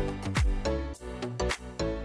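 Background music with a steady electronic beat: punchy kick drum and bass under sustained pitched notes.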